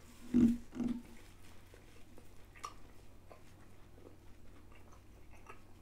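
Person chewing a mouthful of a fried chicken burger, with soft mouth clicks at irregular intervals. Two short low hums from the eater come about half a second and a second in, and they are the loudest sounds.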